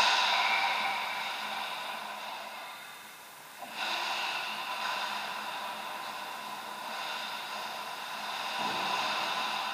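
Ice hockey rink sounds: skates scraping across the ice in hissing swells, one at the start and another about four seconds in, over a steady hum.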